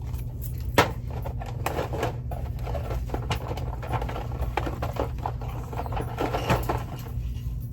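Merchandise being handled: scattered light clicks, knocks and rustling, with one sharp click about a second in, over a steady low hum.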